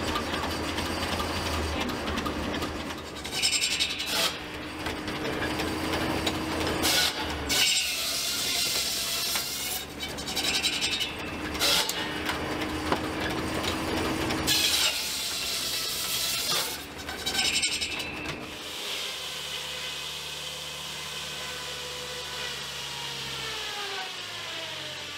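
Circular sawmill blade running and cutting a log, with about six loud hissing bursts as the teeth bite through the wood. Then a steady machinery hum whose pitch falls near the end.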